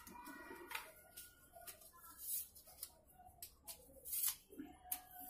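Light clicks and rattles of a lightweight aluminium tripod's telescoping legs being pulled out and their leg-lock clips snapped shut, a handful of short clicks spread across a few seconds.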